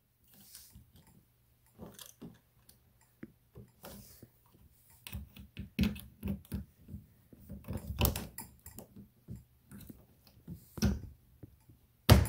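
Irregular clicks, taps and knocks of a folding kayak's metal latch plate, pin and cotter pin being worked into place against its polyethylene hull panels, the loudest knock near the end.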